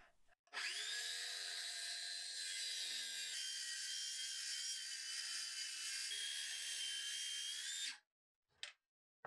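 Cordless circular saw spinning up and cutting through a wooden board along a straight-edge guide: a steady high whine for about seven seconds, dipping slightly in pitch partway through, then stopping abruptly.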